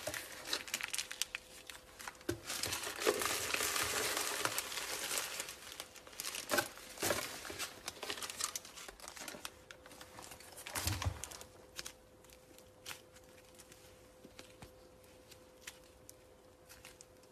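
Slime being squeezed and worked by hand, making dense crinkling, crackling and popping sounds. It thins out to a few soft clicks after about twelve seconds.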